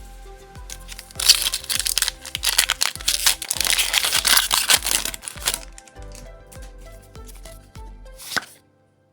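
Background music with a steady low beat, over about four seconds of loud tearing and crinkling of a foil booster-pack wrapper being ripped open, starting about a second in. The music cuts off near the end.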